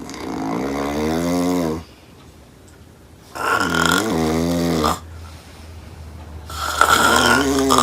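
Loud snoring: three long snores about three seconds apart, each with a buzzing pitched tone, the third still going near the end.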